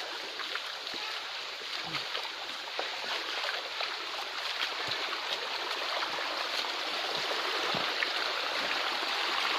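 Steady rushing water, growing a little louder toward the end.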